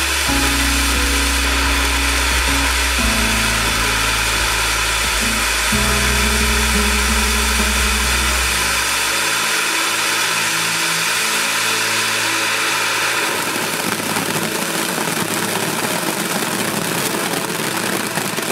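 Cone fountain firework spraying sparks with a steady loud hiss, turning grainier and crackling in the last few seconds, over background music whose bass line drops out about halfway through.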